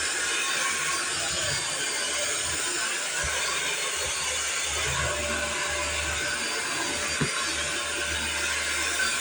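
Vacuum cleaner running steadily, with one short knock about seven seconds in.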